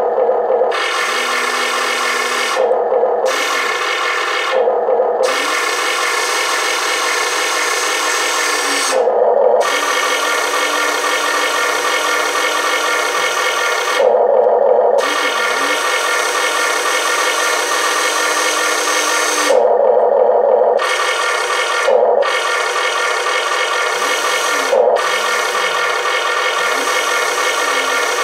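Electric drive motors of an Amewi 22501 1:14 full-metal RC excavator running as the boom, arm and bucket are moved. The noise runs in long stretches and stops briefly about eight times.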